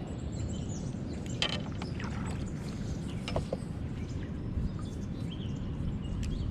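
Outdoor ambience on a kayak drifting down a river: a steady low rumble with a few light clicks and knocks, the first about a second and a half in.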